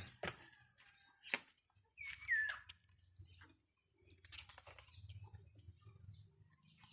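A small pet bird gives one short chirp that falls in pitch, about two seconds in. Around it are a few light taps and a brief rustle.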